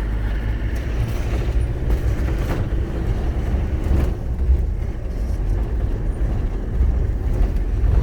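A car driving slowly along a dirt road: a steady low engine and road rumble, with a couple of short knocks as it goes over bumps.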